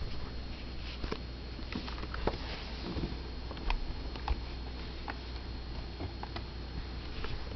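Dell Inspiron E1505 laptop giving off a steady high-pitched whine while under load, with scattered light clicks over a low hum.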